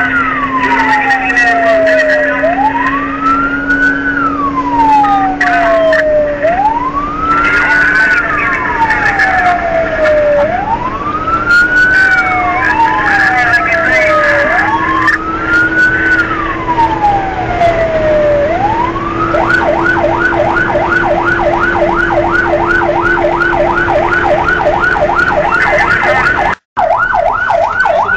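Fire engine siren heard from inside the truck's cab: a slow wail rising and falling about every four seconds, switching about two-thirds of the way through to a fast yelp of about three cycles a second. Beneath it, the engine's steady hum climbs slowly in pitch, and the sound cuts out for a moment near the end.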